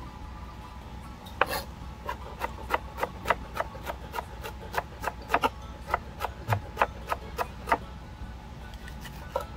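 Chef's knife chopping bell pepper on a plastic cutting board: a steady run of knocks about three a second, starting about a second and a half in and stopping a couple of seconds before the end, then a single knock near the end.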